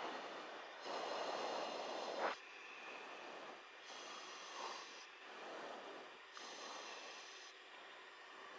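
Breathing into an open headset microphone on an aircraft intercom: a run of breaths about a second apart over a faint hiss, the first the loudest.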